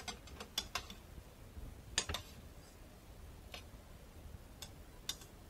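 Metal tongs clicking against a stainless steel pot while cooked instant noodles are tossed and mixed: scattered light clicks, a quick cluster in the first second and a pair about two seconds in.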